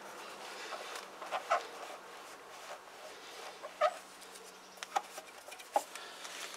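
Cloth rag wiped along the chrome fork stanchion of a Yamaha YBR125, giving a few short rubbing squeaks over a faint steady hum.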